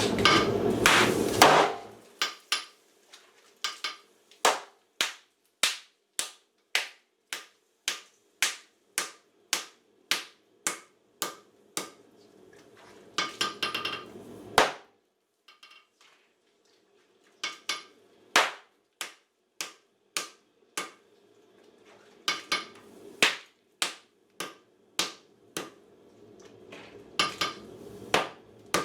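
Hand hammer striking hot homemade steel on an anvil in a steady rhythm, roughly two blows a second, with a pause of a couple of seconds partway through. A loud rushing noise fills the first couple of seconds and comes back briefly about 13 seconds in.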